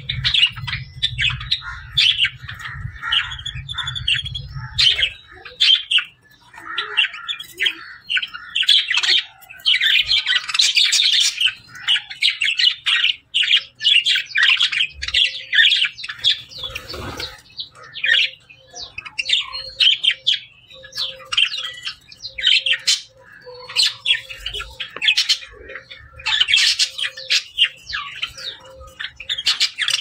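A flock of budgerigars chirping and chattering, many short calls overlapping with hardly a pause. A low hum sits underneath for the first five seconds or so.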